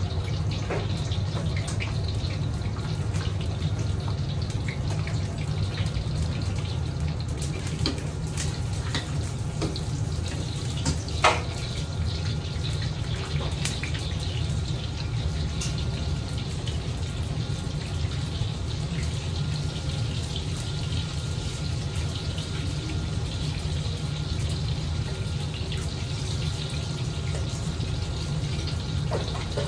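Steady roar of a restaurant gas wok range and its extraction, with scattered light clinks of a ladle on the wok and one louder knock about eleven seconds in.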